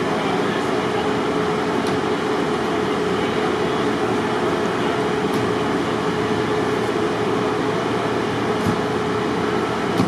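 Loud, steady machinery drone with a constant hum and a few faint ticks.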